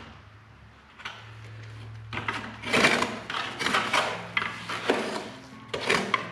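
Bricklaying with mortar: a trowel scraping wet mortar in a plastic bucket and bricks being pushed and slid into the mortar bed. A series of rough scrapes starts about two seconds in.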